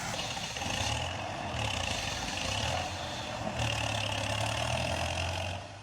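Logging tractor's engine running with a steady low hum, with a high whine that comes and goes three times over it.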